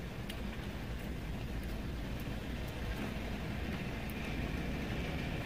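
Low, steady vehicle rumble heard from inside a parked car, growing slightly louder, with a few faint small clicks.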